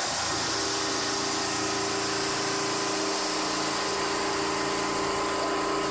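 Richpeace multi-head automatic template sewing machine running, a steady mechanical hum with a few held tones.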